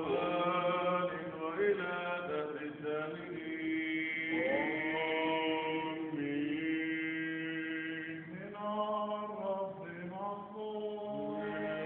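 Orthodox church chanting by unaccompanied voices: long held notes, with a lower voice holding a steady note beneath a slowly moving melody that shifts pitch about every second or two.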